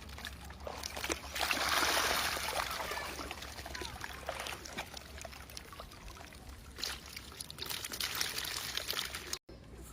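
Water splashing and pouring in two spells, with small clicks and splashes between them.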